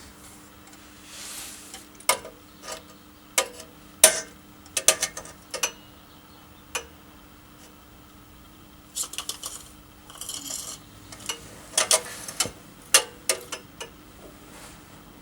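Irregular clinks and knocks of metal exhaust parts and tools being handled, in two bursts, over a faint steady hum that stops about ten seconds in.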